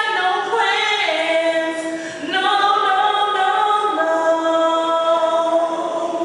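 A woman singing a cappella into a hand-held microphone, holding long, drawn-out notes one after another, with a brief breath a little after two seconds in.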